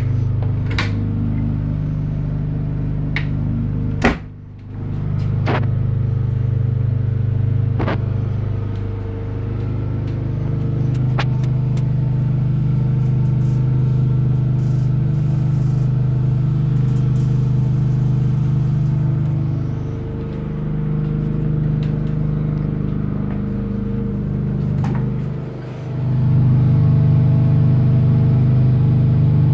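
A generator engine running steadily with a low hum. A sharp knock about four seconds in is followed by a brief dip in the hum, and a few light clicks and knocks come through here and there.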